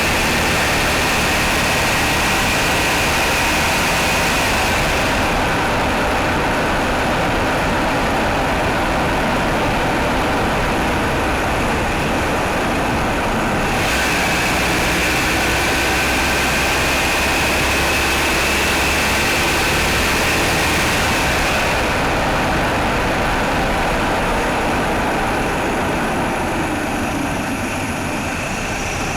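Mitsubishi Outlander's 4G63 four-cylinder engine running steadily, with the knocking its owner hears after a cold start.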